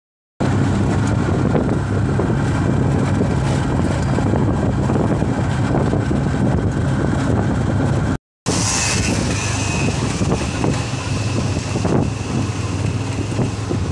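Steady engine hum and road noise of a moving vehicle, heard from inside its open-sided cabin, with a short break about eight seconds in.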